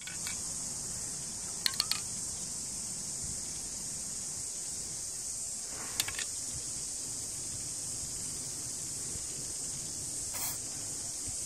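Steady high-pitched insect chorus, with a few sharp clicks about two seconds in and again near six seconds. A short hiss from a can of marking spray paint comes near the end.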